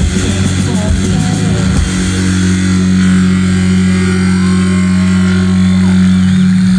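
Live rock band with electric guitars, bass and drums playing loudly. There are drum hits in the first couple of seconds, then the guitars and bass hold one ringing chord that stops near the end.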